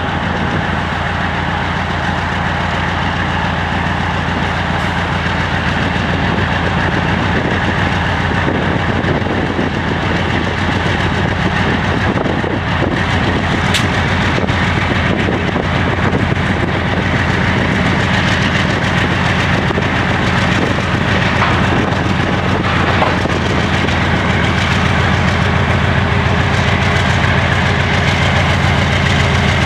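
GE C36-7i diesel-electric locomotive's diesel engine working as it pulls a freight train away from a standstill at walking pace: a steady, deep engine drone that grows slowly louder as the locomotive draws near.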